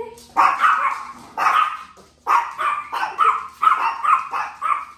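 Small long-haired Chihuahua barking in short, sharp barks: two at first, then a quicker run of about eight from about two seconds in.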